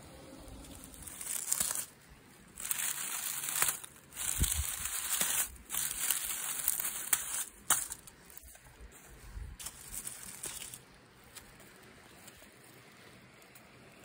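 Dry fallen leaves and dead grass crunching and crinkling under handling, in four loud bursts over the first eight seconds, then softer rustling that dies away.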